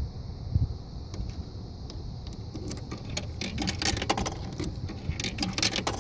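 Small metal objects jingling and clicking in quick clusters, starting about two and a half seconds in and busiest near the end, over a low steady rumble.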